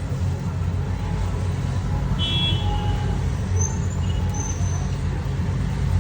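Street traffic noise: a steady low rumble of passing vehicles, with a short high-pitched tone about two seconds in.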